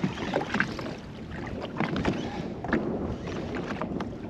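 Wind on the microphone and small waves slapping against the hull of a drifting jet ski, with irregular splashy knocks and no engine running.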